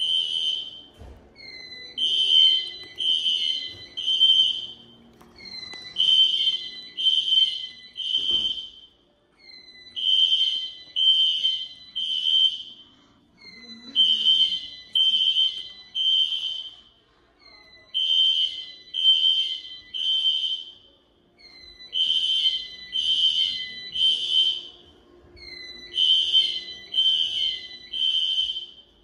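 Hotel fire alarm horns sounding loud in the temporal-three evacuation pattern: three high tone pulses of about half a second each, then a pause, repeating every four seconds, during a fire alarm system test.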